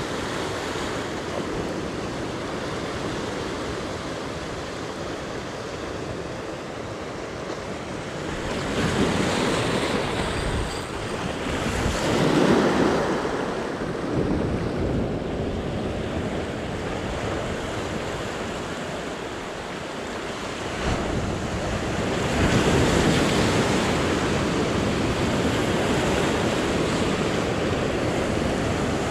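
Sea waves washing and breaking, with louder surges about a third of the way in and again in the last part, and wind buffeting the microphone.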